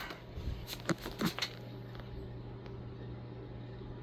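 Vintage Casablanca Victorian ceiling fan with a K63 motor running with a steady low hum as it is turned up to a higher speed. A couple of short clicks come about a second in.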